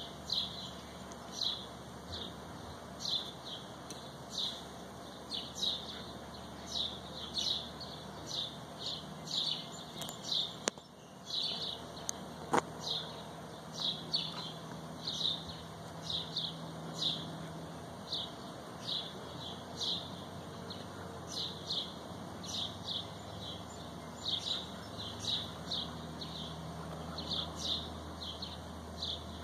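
A bird chirping over and over, short high chirps about one and a half a second, with one sharp click about twelve seconds in.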